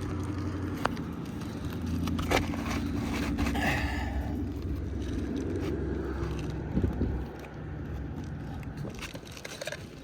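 A motor vehicle engine running steadily nearby, dying away about seven seconds in, with a few sharp clicks and a brief scrape over it.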